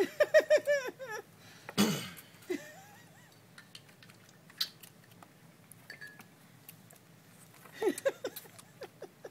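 A woman giggling in a quick run of short laughs, then a brief thump or rustle about two seconds in, and another short burst of giggling near the end.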